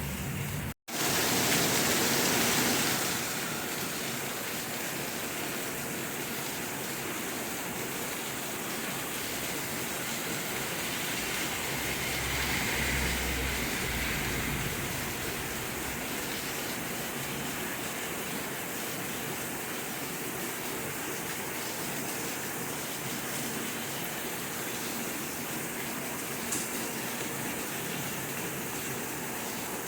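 Steady rain falling, an even, constant hiss. The sound cuts out for an instant just under a second in, then comes back louder for a couple of seconds before settling.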